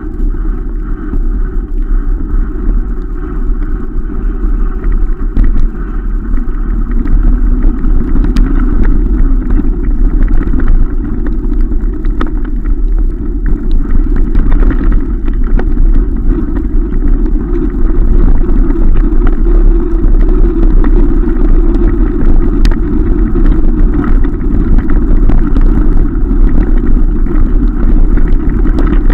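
Steady wind noise on the microphone of a camera on a moving mountain bike, with tyres rolling over a dirt track and short rattles from the bike over bumps. It gets a little louder about seven seconds in.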